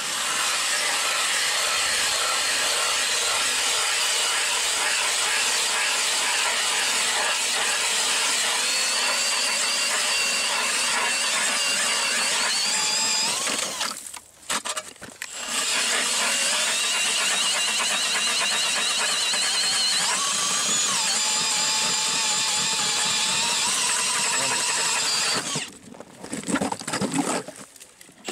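Power drill spinning an ice auger through lake ice: a steady motor whine whose pitch shifts as the bit loads up. It stops about 14 seconds in, starts again a second and a half later, and stops again a couple of seconds before the end.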